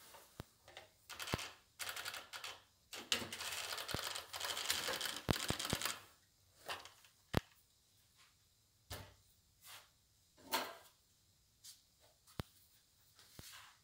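Handling noise of woodworking tools on a workbench: scattered clicks and knocks, with about three seconds of scraping a few seconds in. No motor is heard running.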